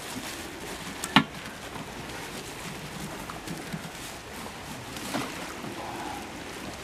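Black plastic bin bag rustling and crinkling as it is pulled off a small metal safe just out of the water, with a sharp knock about a second in and a lighter one near the end.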